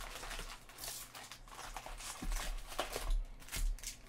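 Trading-card packs and cards being handled on a table: irregular rustling and soft scrapes of card and foil wrappers.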